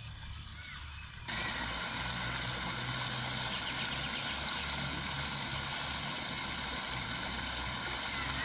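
Water splashing steadily from a small ring fountain, its many jets falling into a round stone basin close by. It starts abruptly about a second in, over quieter outdoor ambience.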